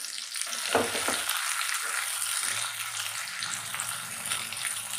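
Chopped onion and tomato sizzling in hot oil in a non-stick pan, stirred and scraped with a silicone spatula.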